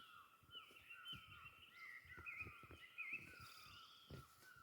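Faint birdsong: small birds chirping and whistling, one giving a quick, evenly repeated chirp over a steady faint background hiss.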